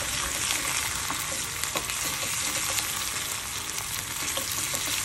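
Sliced shallots and dried red chillies sizzling in hot oil in a kadai, with steady crackling, while a wooden spatula stirs them: the tempering for a curry.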